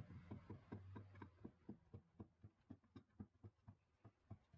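Hand screwdriver turning a small screw into a cast-iron firebox, giving a faint, even run of clicks, about four a second.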